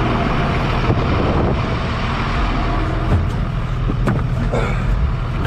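Engine of a MaxxPro armoured ambulance running steadily as it drives, heard from inside the cab, with a few knocks and rattles.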